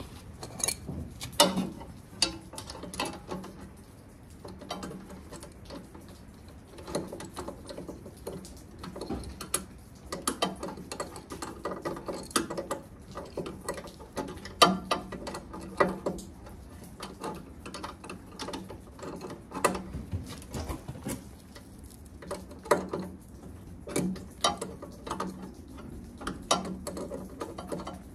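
Irregular metallic clicks and clinks of hand tools and parts on an Ariens Classic 24 snowblower's auger shaft while its shear pin and bolt are taken out and fitted, a few clicks sharper than the rest.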